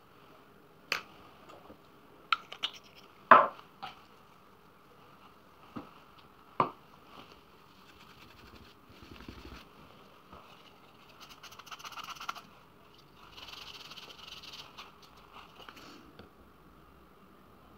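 A few sharp knocks and clicks from objects being handled on a work surface, the loudest about three seconds in, followed by a cloth rubbing and wiping across a white painted furniture panel in several spells of soft scrubbing.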